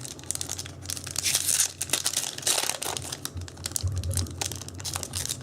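Foil wrapper of a Yu-Gi-Oh! booster pack being torn open and crinkled by hand, a dense run of irregular crackles and rips.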